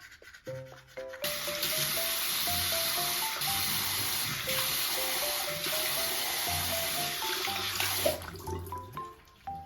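Running water pouring steadily, starting about a second in and cutting off suddenly near the end, over light background music with a plucked melody.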